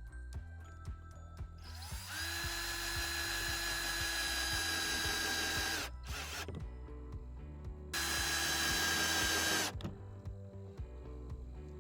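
Power drill running twice at a steady speed, spinning up and holding one pitch for about four seconds, then again for under two seconds, each run stopping abruptly.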